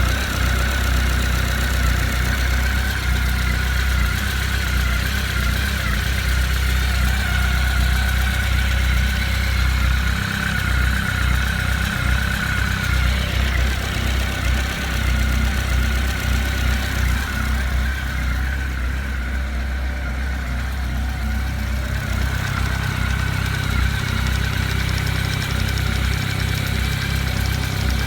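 Honda CB1300 liquid-cooled inline-four idling cold, with a knocking from low in the engine near the water pump. The owner puts the knock down to an air lock in the cooling system letting the water-pump shaft rattle in its play against the oil-pump shaft.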